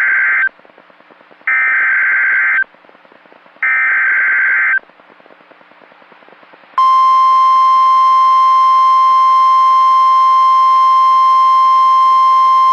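Emergency Alert System SAME header data bursts: three raspy, buzzing digital screeches about a second long each, one second apart. About seven seconds in, the steady single-pitch NOAA Weather Radio 1050 Hz alert tone begins and holds, marking the start of a new warning broadcast.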